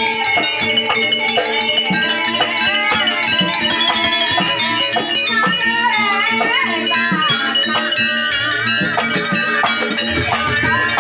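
Live jaranan music from an East Javanese gamelan-type ensemble. Steady ringing metallic tones play under a higher melody that bends and wavers in pitch.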